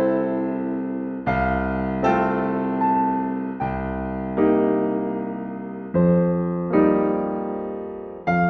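Background music of slow, soft keyboard chords on a piano or electric piano. Each chord is struck and left to fade, with a new one about every second.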